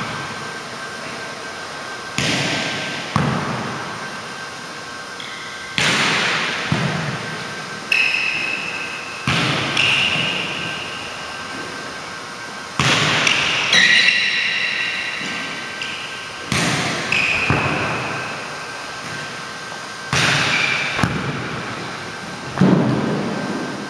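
Volleyballs being hit and bouncing on a hardwood gym floor: about a dozen sharp smacks, often in pairs, each followed by a long echo in the big hall. Short high squeaks come in between.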